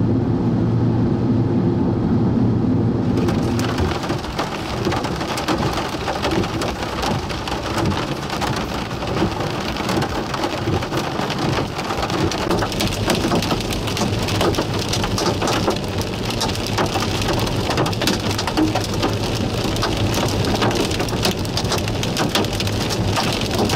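Steady vehicle engine and road hum for about three seconds, then an abrupt change to heavy rain falling steadily, with a dense patter of drop impacts, from a supercell thunderstorm.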